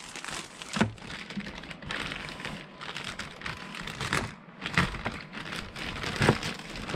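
Clear plastic bags crinkling as they are handled, with a few sharp clicks and taps, about a second in and again near five and six seconds.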